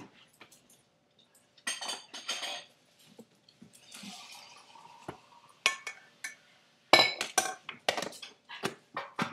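A small metal saucepan and utensil clinking and knocking against a blender jar and the countertop as melted butter is poured in and the pan is set down, with the loudest cluster of sharp clatters in the last couple of seconds.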